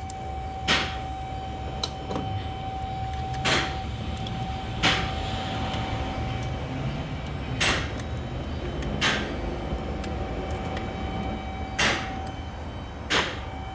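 Hand tools working on a car's engine bay: seven short rasping strokes, mostly in pairs about a second and a half apart, like a ratchet wrench being swung, over a steady high hum and a low rumble.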